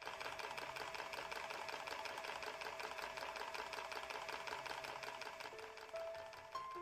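Small wooden blacksmith automaton's mechanism running with a rapid, even clicking and a steady whine, sounding like a sewing machine. A few piano notes come in near the end.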